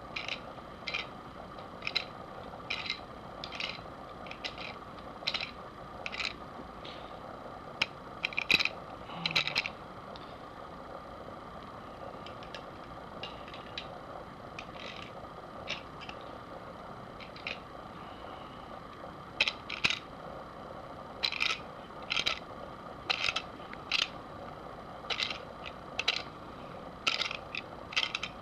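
Tubing cutter being spun around a steel Mossberg Maverick 88 12-gauge shotgun barrel: short scraping strokes of the cutting wheel on the metal, about one or two a second, thinning out for a stretch in the middle. The cutter's wheel has been damaged by overtightening, and the cut is no longer running smoothly.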